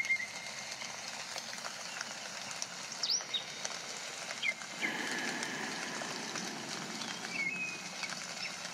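Jungle nature ambience: a steady hiss of running water and rain with scattered bird chirps and short whistles, one a quick rising whistle about three seconds in. A deeper rush of water joins about five seconds in.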